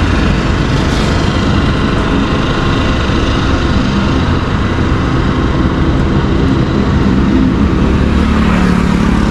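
Motorcycle riding along a road: the engine's steady running is mixed with a loud rush of wind noise on the microphone, and the engine hum comes through a little more clearly near the end.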